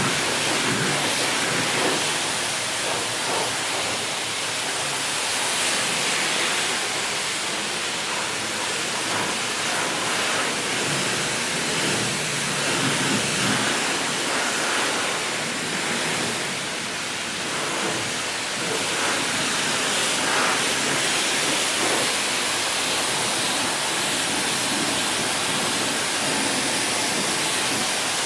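High-pressure water spray from a self-service car wash wand hitting a car's body, a steady hissing rush that swells and shifts as the spray moves over the panels.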